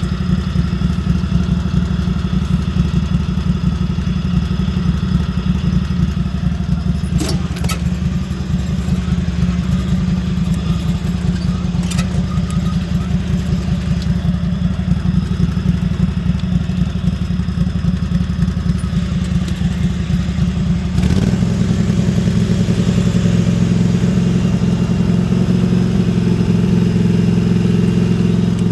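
Lawn mower engine fitted with a truck exhaust pipe, running steadily and a little loud, with a low, pulsing exhaust note. About three-quarters of the way through it gets louder and steadier. Two short clicks come earlier on top of the engine.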